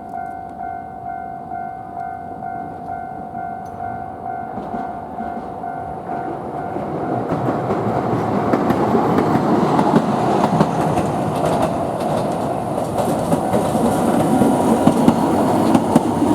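Level crossing warning bell ringing in a steady repeating tone, then a Toden Arakawa Line tram running over the crossing, its wheels and body rumbling louder from about six seconds in, with a few sharp clacks near the end.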